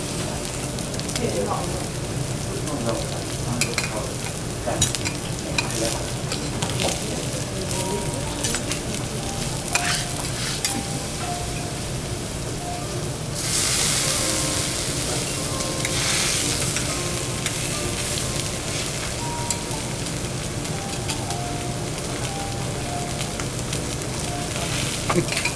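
Food sizzling on a teppanyaki iron griddle, a steady hiss broken by sharp metal clicks and scrapes. About 13 seconds in the sizzle turns louder and brighter for a few seconds.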